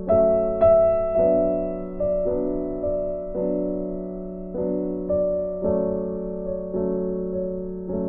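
Background music: slow, gentle piano, with notes and chords struck every half second to a second and left to ring and fade.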